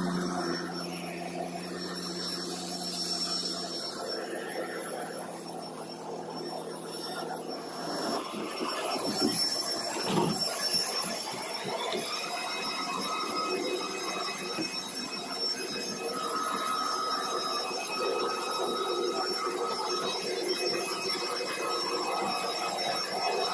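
Steady high whine and hum of jet aircraft on an airport apron, with several pitches held throughout. Irregular knocks and scuffs around ten seconds in, as feet climb the metal boarding stairs.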